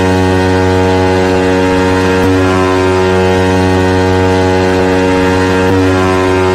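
A loud, steady, horn-like drone holding one low pitch with a stack of overtones and no beat, from a car sound-system CD track, with two faint clicks partway through.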